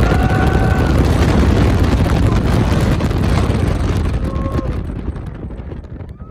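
Wind rushing over the microphone and the low rumble of a B&M hyper coaster train plunging down its first drop, with riders' short yells near the start and about four seconds in. The rush eases off near the end as the train slows on the climb.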